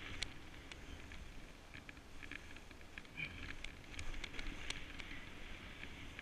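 Snowboard gliding through deep powder snow: a steady low rumble with scattered light ticks and crackles.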